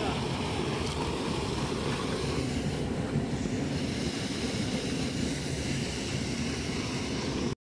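Steady low rumble of wind buffeting the microphone outdoors. It cuts off suddenly near the end.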